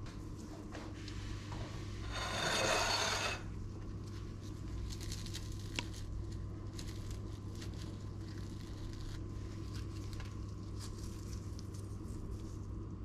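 Small crackles and clicks of crisp toasted bread being torn by hand and a spoon touching a frying pan, over a steady low hum. About two seconds in, a louder scraping rustle lasts about a second.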